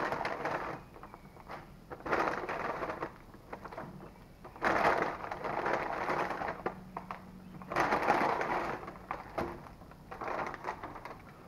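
Brown paper takeout bag rustling and crinkling in several bursts as wrapped food items are pulled out of it.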